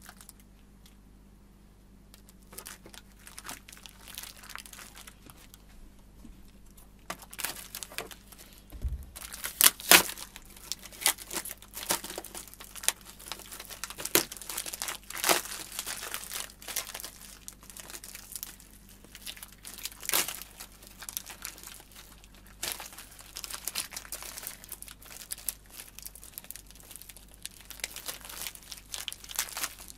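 Plastic packaging crinkling and crackling in irregular handfuls as a Gibraltar drum rack clamp is unwrapped by hand. It starts a couple of seconds in and gets louder and busier from about seven seconds in.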